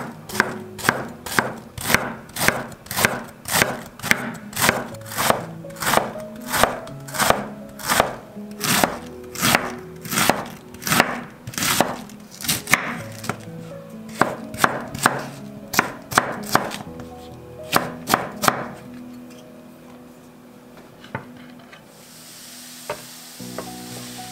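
A chef's knife shredding cabbage on a wooden cutting board, steady chopping strokes about two a second that thin out and stop after about 19 seconds. Near the end a sizzle starts as the cabbage goes into a hot pan.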